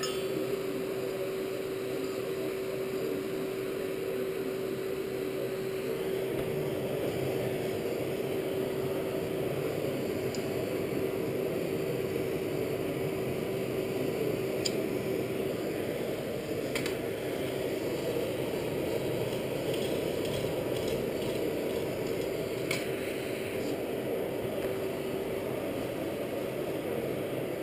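Air blower of a coal forge running steadily, a constant hum with one held tone, while the fire is worked. A few light metallic clinks of tongs sound here and there.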